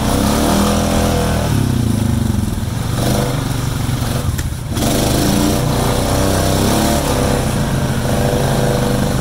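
Snorkel-equipped ATV engine pulling through deep mud, its pitch rising and falling as the throttle is worked. The engine drops off briefly about four and a half seconds in, then picks up again.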